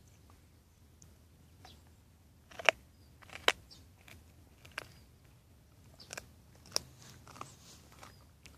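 Dog gnawing a bone, with several sharp crunches at irregular intervals as its teeth crack the bone; the loudest two come about two and a half and three and a half seconds in.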